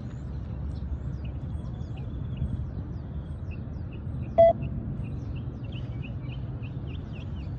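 A single short electronic beep from the beep-test recording, a little past halfway, signalling the runners to reach the line for the next shuttle. Faint bird chirps come in over a steady low background rumble.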